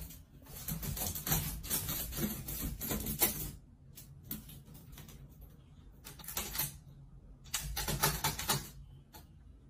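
A dog's paws scratching and shuffling on a woven mat: bursts of rapid dry crackling and scratching, three main bursts with quieter gaps, over a faint low steady hum.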